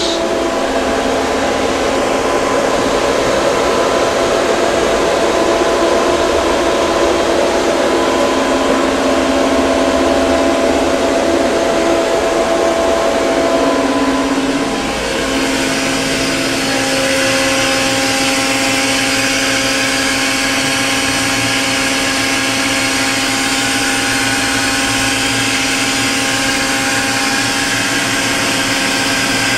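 A powered-up Okuma & Howa Millac 630H horizontal machining center running steadily, with hum and whine from its hydraulic unit, chiller and cooling equipment. About halfway through, after a brief dip, the pitch of the hum changes and a higher hiss joins in.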